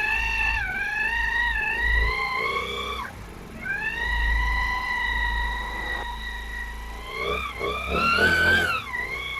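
Motorcycle engine running with a loud, high-pitched whine with overtones from the small gear in the clutch case (the primary 'cushion gear'). The whine breaks off briefly about three seconds in, then returns and climbs and drops near the end. The mechanic takes the noise as the sign of a faulty cushion gear, which he replaces.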